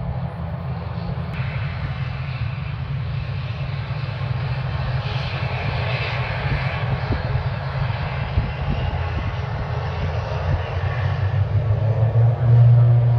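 ATR 72-600's twin Pratt & Whitney PW127M turboprops running on the runway: a steady low propeller drone with a high turbine whine over it. About twelve seconds in, the drone grows suddenly louder as power comes up for the take-off roll.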